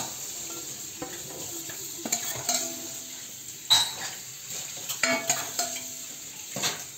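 Cold sugar syrup sizzling and crackling as it soaks into a hot, freshly baked tray of tel kadayıf (shredded-pastry dessert) in a metal pan, with a few sharp clicks or knocks, the clearest about halfway through.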